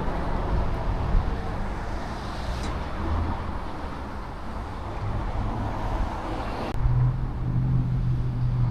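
Road traffic noise: cars passing, with a low engine hum. The sound changes abruptly near the end, leaving a steadier low hum.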